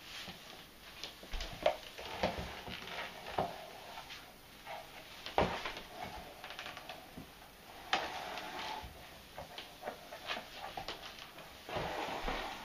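A plastic broom with stiff bristles scuffing and scraping across a wooden floor while a cat grabs and wrestles the broom head: irregular scrapes and taps, with sharper knocks about 1.5, 5.5 and 8 seconds in.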